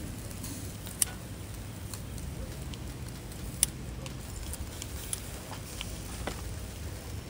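Fire in a camping fire pit crackling, with a few sharp clicks as metal tongs turn food on the grill plate, over a steady low rumble.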